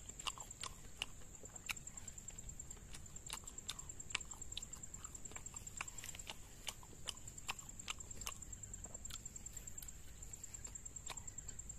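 A person chewing and biting fried martabak close to the microphone: irregular sharp crackling clicks and smacks, several a second. A steady high-pitched whine runs underneath.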